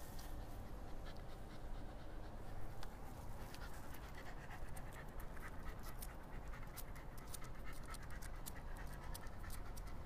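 Shiba Inu panting, with many small, irregular clicks through the middle of the stretch, over a steady low background rumble.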